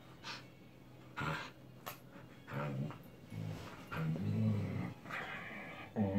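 Siberian huskies play-fighting, making short low growls and grumbling vocalisations in separate bursts about a second apart.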